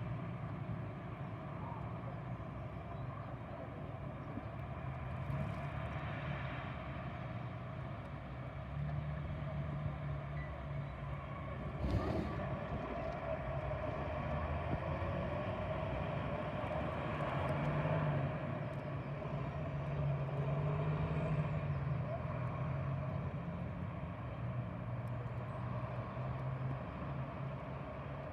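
Steady low rumble of street traffic, swelling and easing as vehicles pass, with a single sharp knock about twelve seconds in.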